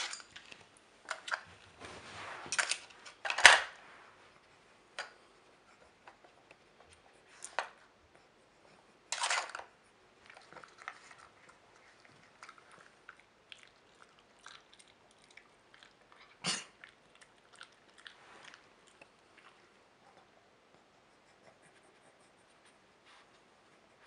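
Dog working a Trixie level 2 plastic treat puzzle board: scattered clicks and knocks of the plastic pegs and lids as it noses them, with chewing of the treats in between. The loudest knock comes about three and a half seconds in.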